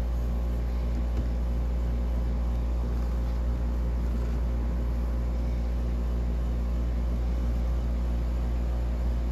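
A steady low hum at an unchanging level, with a few faint clicks of handling.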